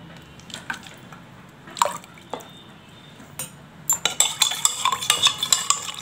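Metal spoon stirring water in a glass bowl: a few light clinks, then from about four seconds in a quick run of clinks and scraping of the spoon against the glass.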